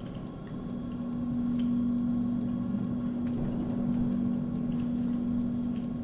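A steady low machine hum, one held tone that grows louder about a second in and then stays even, with a faint quick regular ticking above it.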